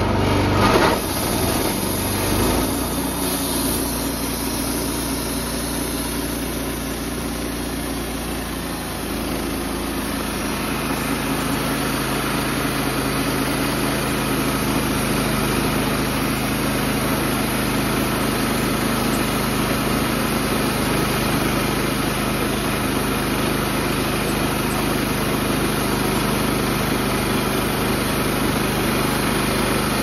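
Wood-Mizer LT15 portable band sawmill running steadily under load, its engine driving the band blade through a six-inch ponderosa pine cant to cut 1x6 boards. The engine note shifts slightly about ten seconds in.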